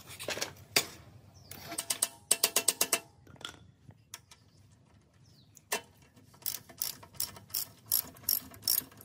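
Socket ratchet wrench clicking as it turns a bolt in a steel mini motorbike frame, in two runs of clicks: a quick run a couple of seconds in, then a steadier run of about three to four clicks a second through the second half. A few metal knocks come in the first second.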